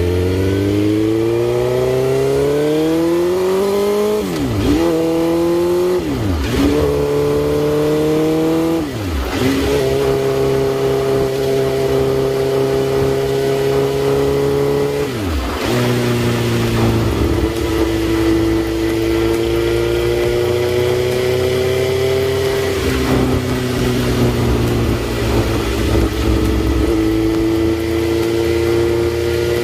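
Suzuki GSX-R1000 sport bike's inline-four engine pulling hard with rising revs, dropping pitch sharply four times as it shifts up, then running at steady cruising revs.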